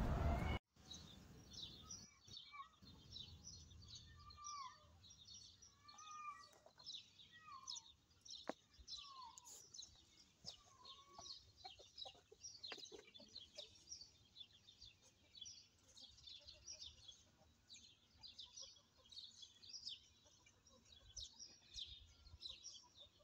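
Faint outdoor birdsong: many small birds chirping throughout, with a handful of short rising-and-falling calls between about four and eleven seconds in. A brief rush of noise at the very start cuts off abruptly in the first second.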